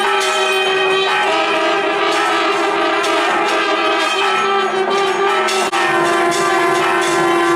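Nadaswaram playing long held notes over a steady drone, with percussion, the melody moving to new notes about a second in and again after about five and a half seconds.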